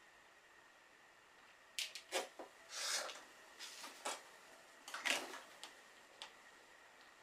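A few light clicks and short swishes of an acrylic quilting ruler and a fabric block being moved and repositioned on a cutting mat, spaced out between quiet gaps.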